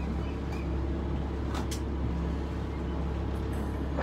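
A sailboat's engine running steadily, a low even drone, with a couple of light clicks about a second and a half in.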